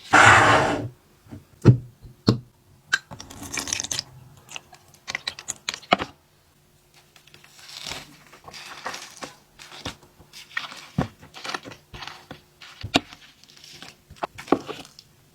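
Packaging and food being handled: a loud tearing rustle in the first second, then scattered rustles, crinkles and sharp clicks and knocks, pausing for about a second midway.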